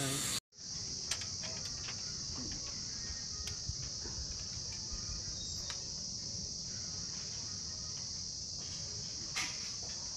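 Steady high-pitched drone of insects calling, starting about half a second in, with a few faint clicks of steel reinforcing bars being handled.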